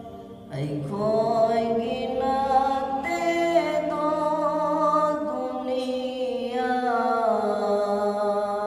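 A man singing a Manipuri naat, an Islamic devotional song, in long held phrases that glide in pitch. The singing starts about half a second in and pauses briefly for breath around five and a half seconds in.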